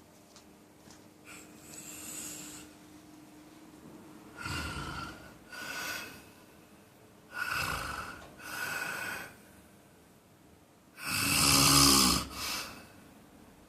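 A man snoring in his sleep. After a quiet start with one faint breath, the snores come every few seconds, mostly in close pairs, and the loudest and longest falls near the end.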